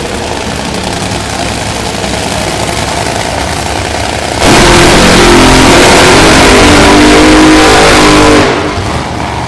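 Top Fuel dragsters' supercharged nitromethane V8s running at a steady low throttle, then about four and a half seconds in going to full throttle. They are overwhelmingly loud, at the limit of the recording, for about four seconds, and cut off abruptly.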